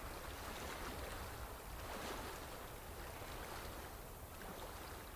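Soft, steady water ambience of gently moving lake water.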